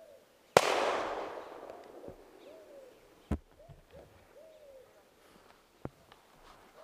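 A single shotgun shot about half a second in, sharp and echoing away over a second or so. Doves coo softly through the rest, and there are two sharp clicks later on.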